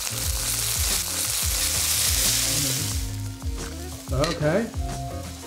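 Chicken broth poured into a hot, oiled wok with shrimp, the liquid hitting the hot metal with a loud sizzle that thins out after about three seconds as it settles toward a boil.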